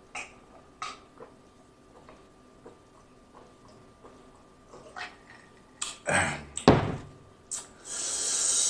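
Faint gulping while drinking from a plastic water bottle. Then loud crackling of the plastic bottle and a thunk as it is set down, followed by about a second of breathy hiss near the end.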